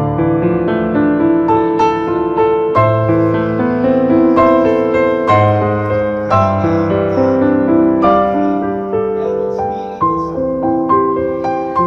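Background piano music: melody notes struck one after another over held lower chords.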